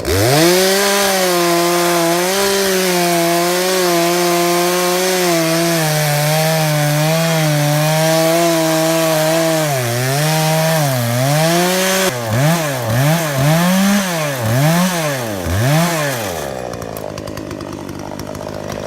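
Gas chainsaw opened to full throttle and cutting through a log, its high engine note holding fairly steady under load with a couple of dips as the chain bites. It is then revved up and down about five times and drops back to a quieter idle near the end.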